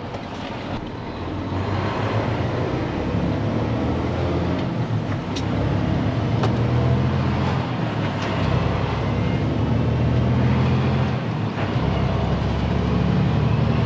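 Heavy truck's diesel engine running under load as the truck pulls along, its note breaking and changing a few times as the driver shifts gears on the 10-speed manual transmission.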